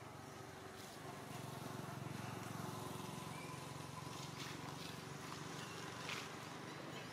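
Low hum of a distant motor vehicle swells about a second in and slowly eases off, over faint outdoor ambience with a few high chirps and small clicks.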